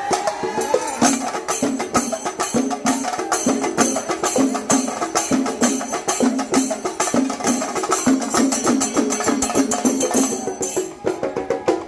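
Chenda melam: chenda drums beaten in a fast, dense rhythm with small ilathalam hand cymbals clashing in time.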